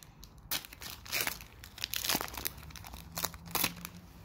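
Foil wrapper of an Upper Deck hockey card pack crinkling and tearing as it is pulled open by hand, in irregular crackly bursts.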